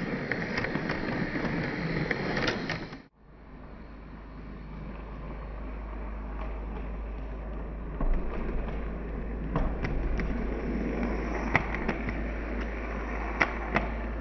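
OO gauge Heljan class 128 parcels unit model running on the layout track: a steady rolling whirr with sharp clicks, loud as it passes close. About three seconds in the sound breaks off suddenly, then comes back as a steady run with a low hum and a few louder clicks as the model comes toward the camera.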